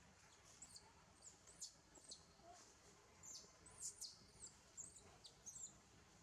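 A rapid, irregular series of short, very high-pitched chirps, more than a dozen in about five seconds, each sliding down in pitch, faint over a quiet background.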